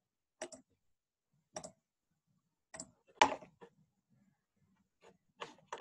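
Computer mouse clicking: about half a dozen short, sharp clicks at irregular intervals, the loudest a little past the middle.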